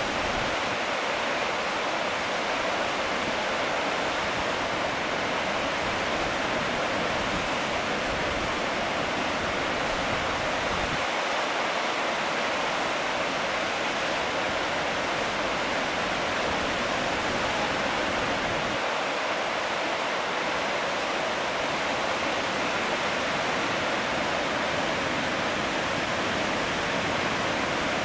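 Marmore Falls, a tall man-made multi-tier waterfall, in full flow during its scheduled water release: a steady, even rush of falling water.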